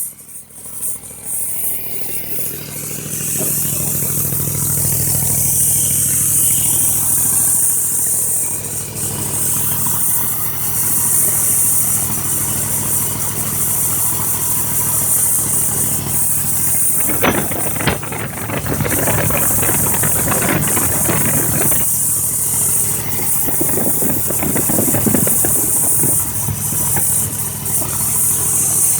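302 V8 engine of a home-built air compressor running steadily, with a constant high hiss. It dips briefly at the very start, then steadies, and has two louder, rattly stretches in the second half.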